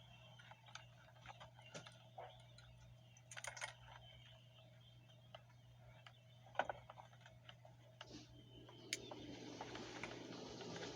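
Small, irregular clicks and taps of a flathead screwdriver prying at a steering-wheel airbag's plastic retaining clips, with a cluster a little after three seconds and the sharpest click about six and a half seconds in, over a low steady hum.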